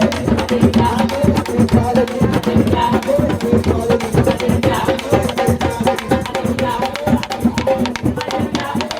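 Music driven by fast, steady drum and percussion beats, with some held melodic tones above them.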